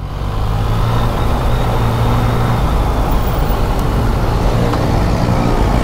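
Yamaha XSR 900's three-cylinder engine running steadily under way, heard through wind and road noise.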